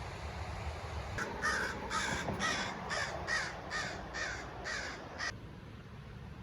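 Crow cawing: a run of about nine harsh caws, roughly two a second, that stops abruptly about five seconds in.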